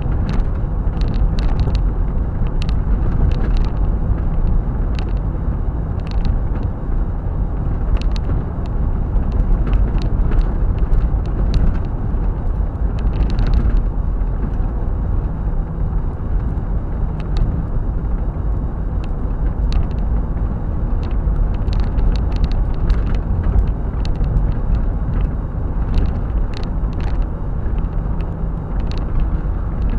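Steady road and engine noise heard inside a car cruising on an open highway, with scattered brief clicks and rattles throughout.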